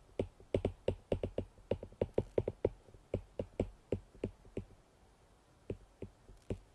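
Stylus tip tapping and ticking on a tablet's glass screen during handwriting: an irregular run of small sharp clicks, several a second, with a short pause about five seconds in before a few more.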